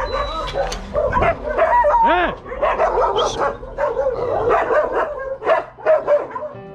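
Many dogs barking and yelping over one another, a continuous din of short overlapping barks with a high yelp about two seconds in.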